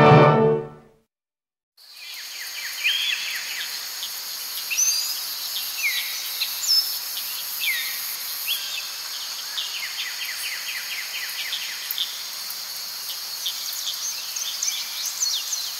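Night-time outdoor ambience: insects trilling steadily, with many short bird chirps and falling whistled calls over them. It starts after brass music fades out and a moment of silence near the start.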